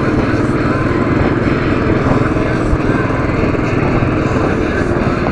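Royal Enfield Classic 500's single-cylinder engine running steadily as the motorcycle is ridden along.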